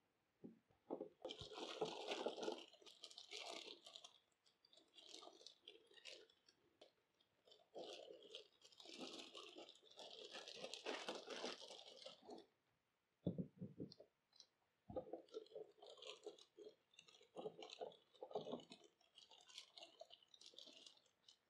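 Clear plastic packaging, a blister tray and plastic wrap, crinkling and crackling faintly as it is handled. The crinkling comes in stretches of a few seconds in the first half, then as shorter crackles with a few sharp clicks in the second half.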